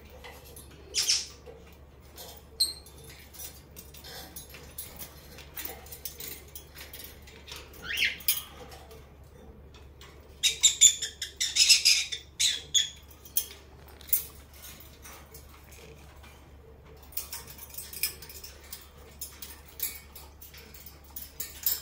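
Senegal parrot preening: scattered soft clicks and rustles of its beak working through its feathers. There is a short squeak about eight seconds in, and a denser run of sharp crackling clicks between about ten and thirteen seconds.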